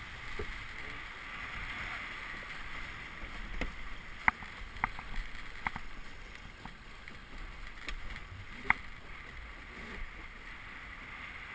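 Melges 17 sailboat under sail: a steady rush of water and wind, broken by several sharp clicks and knocks, the two loudest about four and nine seconds in.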